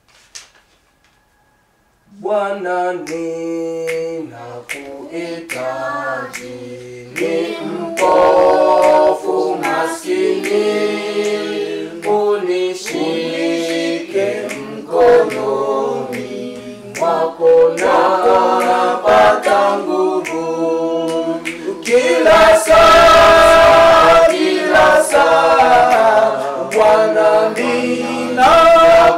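Unaccompanied choir singing a hymn in harmony, coming in about two seconds in after a near-silent pause. Sharp clicks sound through the singing.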